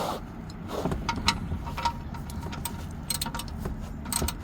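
Irregular metallic clicks and clinks of a socket wrench being worked on the oil drain plug, snugging it back into the oil pan.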